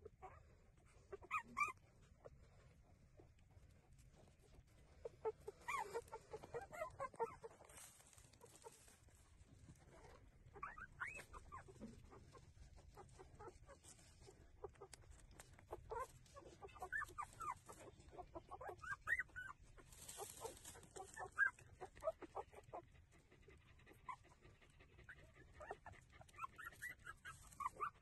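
Newborn puppies squeaking and whimpering faintly while nursing, in short high squeaks that come in scattered clusters.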